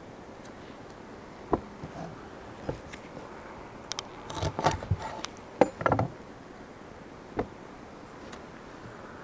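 Kitchen knife cutting raw chicken drumsticks on a wooden chopping board, the blade knocking on the wood: a few single knocks, then a quicker cluster of louder knocks about four to six seconds in.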